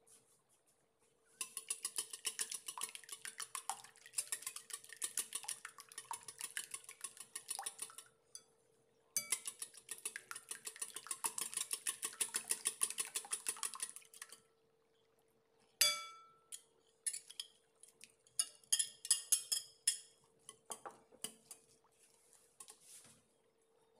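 Wire whisk beating eggs and milk in a glass bowl: the wires click rapidly against the glass in two long runs. Then comes a single ringing clink, followed by a few slower, scattered clinks as the mix is stirred.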